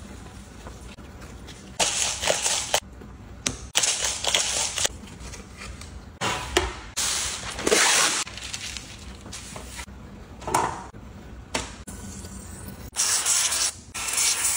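Several separate bursts of crisp paper rustling and crinkling: a paper towel pressed onto a fish fillet on a plastic cutting board, and baking parchment pulled from its box and spread over a baking tray.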